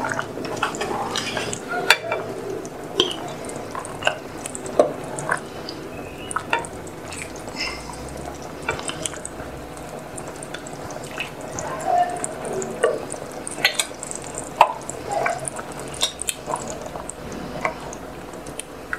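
A ladle scooping soup from a saucepan and pouring it into a ceramic soup plate: scattered clinks and knocks of the ladle against the pot and plate, with soft splashing of liquid.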